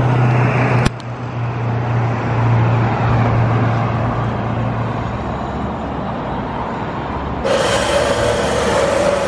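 Motor vehicle noise: a steady low hum, with a sharp click about a second in. From about seven and a half seconds in, a steady mid-pitched whine joins.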